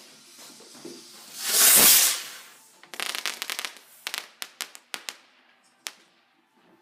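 Consumer firework going off: a loud whoosh as it launches about a second and a half in, then a spray of rapid crackling pops for about three seconds that thins out to scattered cracks.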